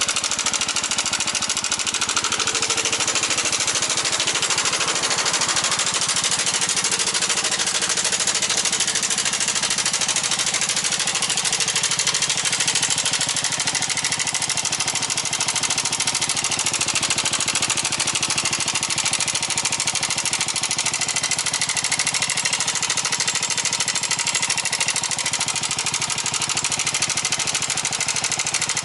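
Yamaha NMAX125 scooter's single-cylinder four-stroke engine running steadily with a rapid, even rattle ("karakarakara"). This is an abnormal noise that came on suddenly at about 10,000 km, despite oil changes done by the book.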